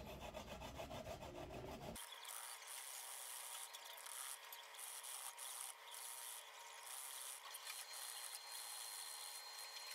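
Daikon radish grated by hand on a plastic grater, a quiet rasping in repeated back-and-forth strokes.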